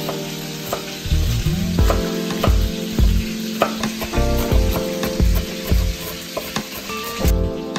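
A knife chopping onion on a wooden cutting board, sharp taps at an uneven pace. Background music with a steady beat and a constant hiss run under it.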